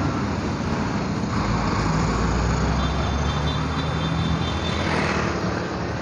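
Street traffic: motor vehicle engines running close by, a steady low hum over road noise.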